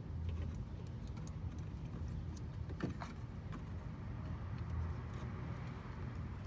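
Light metallic clicks and small rattles of wire connectors and the electronic voltage regulator's metal bracket being handled, with one sharper click about three seconds in, over a low steady rumble.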